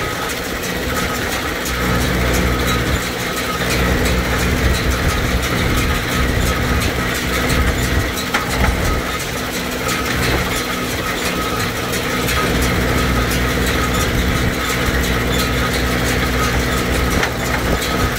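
Fiat 640 tractor's four-cylinder diesel engine running steadily under load, driving a Galligani 4500 square baler through its PTO as the baler picks up and packs hay, with faint, regular clicking from the machinery.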